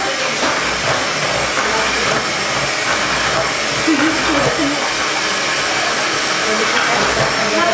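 Electric hand mixer running steadily, its beaters whisking a pale mixture in a bowl.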